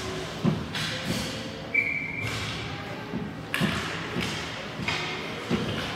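Ice hockey goaltender's gear and skates moving in the crease: irregular thuds of pads and stick, each with a short scrape of skates on the ice.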